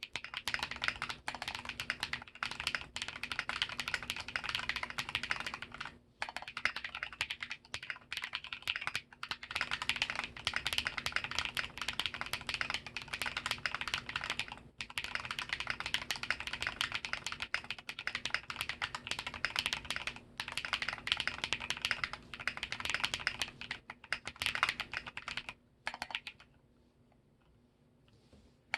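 Typing on a TOFU65 mechanical keyboard with lubed Drop Holy Panda tactile switches in a brass plate and MT3 keycaps: a dense, continuous stream of keystroke clacks with brief breaks. It falls quiet for about two seconds near the end.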